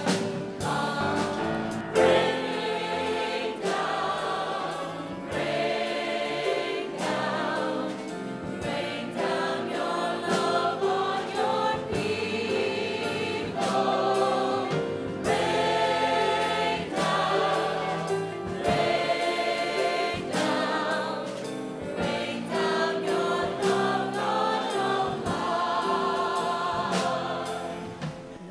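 Church choir singing a hymn with accompaniment, the sung notes changing every second or so over steady held notes.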